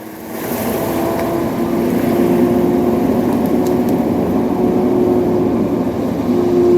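Heavy machine engine running steadily with a steady hum, building up over the first second or two and then holding at a constant pitch.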